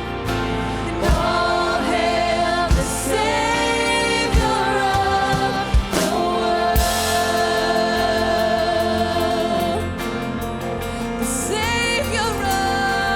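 Live contemporary worship music from a church band: sung vocal lines with vibrato over sustained chords, with a bass drum hitting about every one and a half seconds. About seven seconds in, the sound swells with a cymbal wash.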